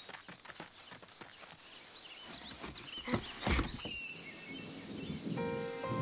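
Outdoor park ambience with small birds chirping and a few soft taps or footsteps, and one louder thump about three and a half seconds in. Gentle music with held notes comes in near the end.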